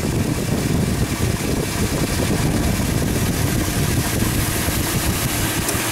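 A 2000 pickup's 6.0-litre V8 engine running steadily after new spark plugs, with a loud, even drone.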